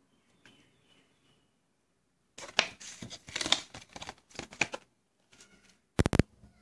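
Thin plastic packaging crinkling and rustling in quick bursts as it is handled, after a quiet start. Near the end comes a brief cluster of three or four sharp, loud clicks.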